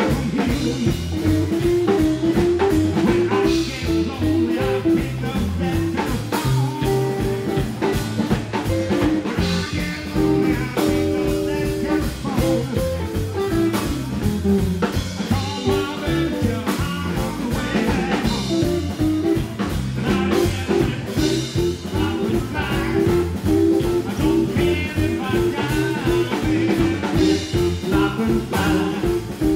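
Live rockabilly band playing: Telecaster-style electric guitar over upright double bass and a drum kit.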